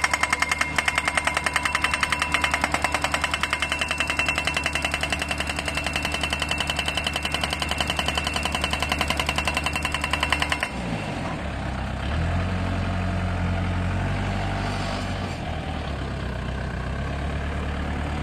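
Hydraulic hammer of a guardrail piling rig pounding a steel guardrail post into the ground in a fast, even hammering that stops abruptly after about ten seconds. The rig's diesel engine is then heard running on its own, picking up slightly a little later.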